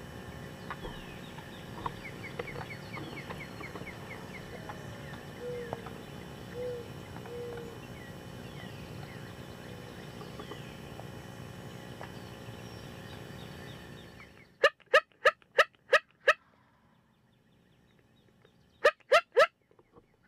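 Turkey yelping: a quick run of six loud, evenly spaced yelps, then three more a few seconds later. Before that, small birds chirp over a steady outdoor background.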